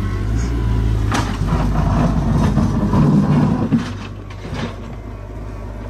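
Caterpillar 312C tracked excavator's diesel engine running and working hard as the machine drags itself up a steep dirt slope with its bucket, with a sharp knock about a second in. The engine note drops back a little after about four seconds.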